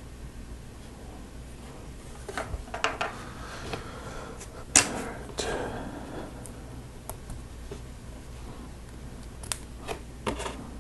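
Lego Technic plastic parts clicking and clattering as they are handled and pressed together, in scattered sharp clicks with the loudest a little under five seconds in.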